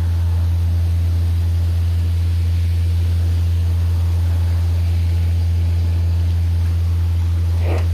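Engine of a 185 CFM portable air compressor running steadily, giving a loud, deep, even drone. Near the end a brief rising whine is heard.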